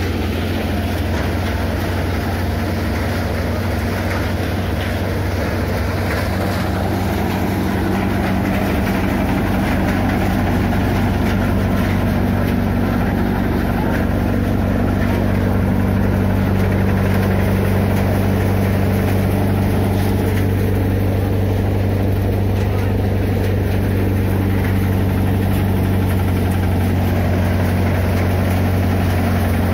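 Tractor-driven groundnut thresher running steadily while groundnut plants are fed in: the tractor engine and the threshing drum make a continuous deep hum, getting slightly louder about halfway through.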